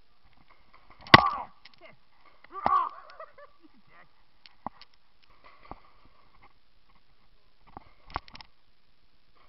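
Paintball markers firing: a few scattered sharp pops, the loudest about a second in, another near three seconds, a couple of faint single cracks in the middle and a quick burst of pops near the end.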